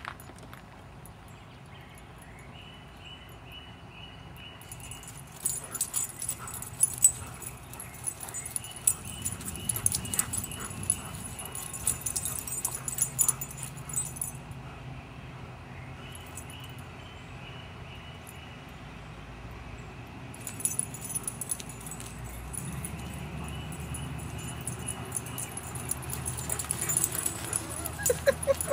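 A big dog and a little dog play-fighting, with dog whimpers and yips and scattered sharp sounds through most of it.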